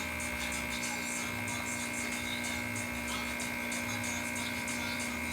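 Rocket Cellini espresso machine's vibratory pump buzzing steadily while pulling an espresso shot.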